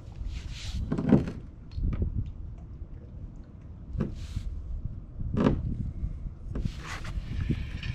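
Knocks and scraping as gear is handled in a kayak, with a few short hissy slides and a low steady rumble of wind on the microphone.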